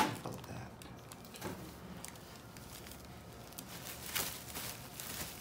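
Quiet room with a sharp click at the start and faint rustling about four seconds in.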